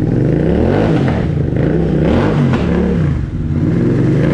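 Royal Enfield Interceptor 650's parallel-twin engine breathing through a TEC 2-into-1 exhaust, revved in neutral in a series of quick throttle blips, about five, each rising and falling in pitch.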